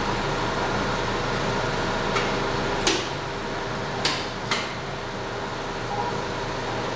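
Steady hum and whir of running Simplex E-7 film projectors and booth machinery, with four sharp mechanical clicks of the projector's switches and levers about two, three, four and four and a half seconds in, as the reel changeover is worked.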